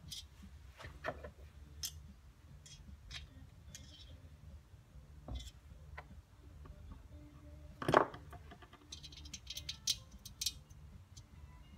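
Small metal parts and hand tools handled on a workbench: scattered light clicks and taps, one loud knock about eight seconds in, then a quick run of light metallic clicks, over a steady low hum.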